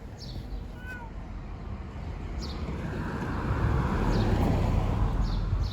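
A vehicle passing along the street. Its broad noise swells to its loudest about four seconds in and then eases, while a bird's short high chirps sound several times.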